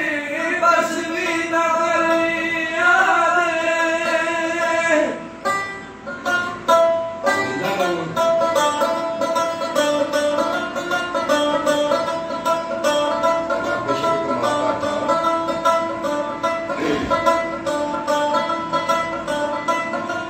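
A man sings a Punjabi folk song to his own plucked long-necked string instrument. The voice stops about five seconds in, and the instrument carries on alone with quick, evenly repeated plucked notes.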